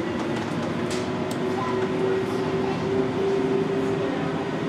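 Inside a NAW trolleybus on the move: the electric traction drive's steady whining hum, edging slightly up in pitch as it gathers speed, with a few light clicks and rattles from the body.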